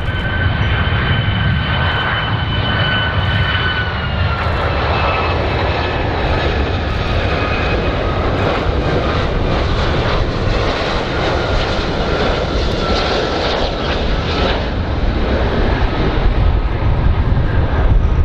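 Boeing 757 jet airliner's engines on landing approach: a steady high whine in two tones over a low rumble. The whine drops in pitch about four seconds in and fades out a few seconds before the end, leaving the rumble.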